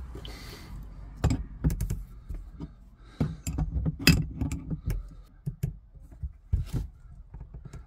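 Plastic push-fit water pipe fittings being pushed together and an adjustable spanner tightening a fitting at the pump: a run of irregular clicks and knocks, the sharpest about four seconds in.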